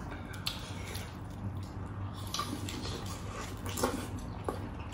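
Faint, wet chewing and mouth sounds of people eating food by hand, with a few soft clicks, over a low steady hum.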